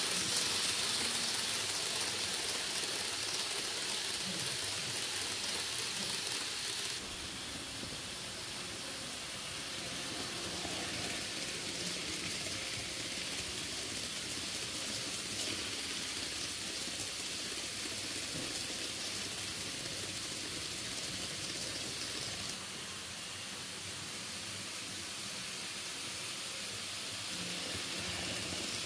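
N-gauge model container freight train running on the layout's track: a steady rolling hiss of small wheels on rails. The hiss shifts in tone suddenly about seven seconds in and again about two-thirds of the way through.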